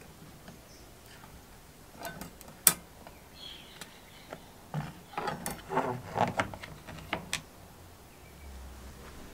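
Metal rod and wire hooks being handled over a plastic tub, clinking and knocking against the tub's rim. A sharp click comes between two and three seconds in, then a run of light knocks and clicks a couple of seconds later.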